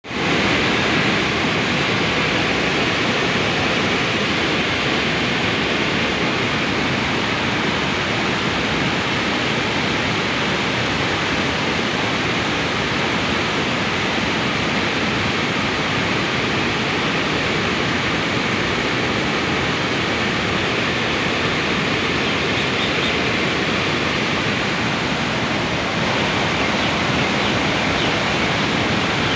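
Floodwater rushing through the opened spillway gates of the Khandong dam, a loud, steady rush of churning water.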